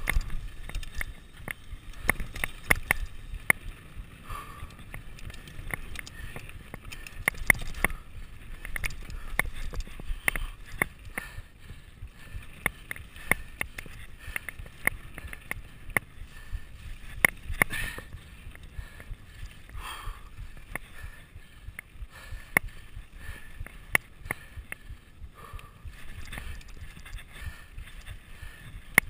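Mountain bike riding fast down a dirt trail: chain and frame rattling and clicking over the bumps, over a low rumble, with a few short squeaks. The rider's heartbeat thumps faintly underneath.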